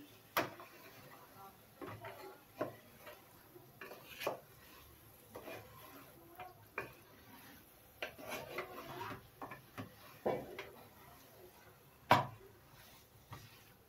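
Spatula stirring a thick curry in an aluminium pot: scattered knocks and scrapes against the pot's side, with the loudest knock near the end.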